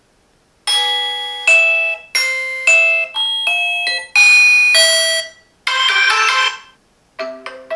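Reolink doorbell chime playing one selectable ringtone after another: short electronic ding-dong tunes of a few pitched notes each, separated by brief gaps, starting under a second in.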